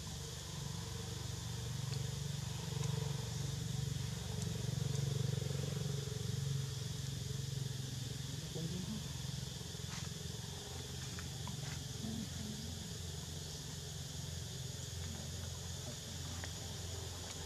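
Steady outdoor background: a low, even hum under a high, even hiss, with a few faint clicks about ten to twelve seconds in.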